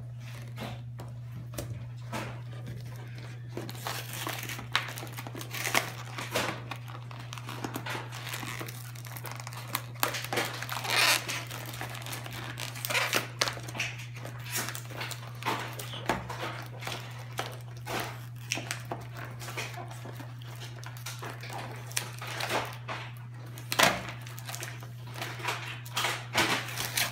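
Cardboard-and-plastic toy blister pack being pried and torn open by hand: irregular crinkling of plastic and tearing of cardboard, with a sharp crack about 24 seconds in. A steady low hum runs underneath.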